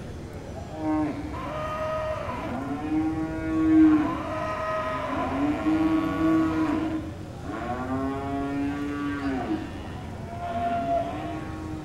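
Young cattle in the herd mooing: a run of about six long, arching moos one after another, some overlapping.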